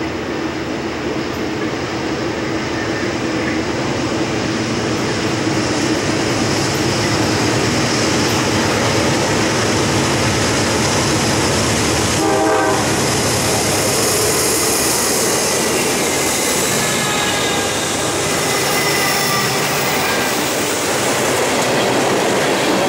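Diesel freight train running past close by: the locomotive draws near and passes about halfway through, then the freight cars roll by with wheel clatter and a faint high wheel squeal.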